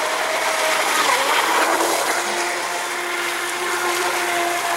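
Miss Geico radio-controlled speed boat running at speed: a steady motor whine with a few held tones, over the hiss of the hull and spray on the water.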